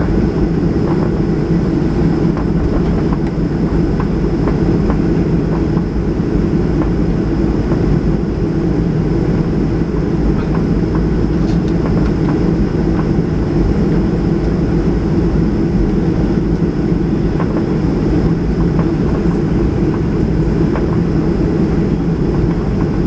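Boeing 737-800 jet engines and airflow giving a loud, steady rumble, with a faint steady high whine above it.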